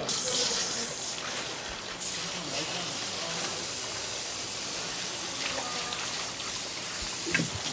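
Tap water gushing onto a plastic cutting board, starting abruptly as the tap is opened and then running steadily while gloved hands rinse cut sea cucumber pieces under the stream. A single short knock comes near the end.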